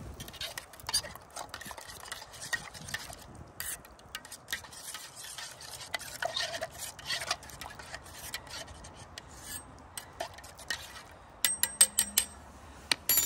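Metal spoon stirring soup in a small stainless steel billy can, scraping and clinking against its sides. Near the end, a few quick taps of the spoon on the pot's rim, each one ringing briefly.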